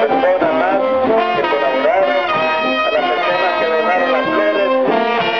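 Marching brass band playing a tune in full: trumpets and trombones over a low brass bass, with held notes and short phrases.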